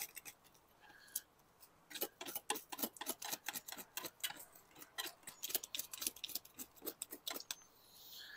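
Knife blade scraping the scales off a black sea bass: a rapid, uneven run of crisp ticks and scrapes that gets going about two seconds in.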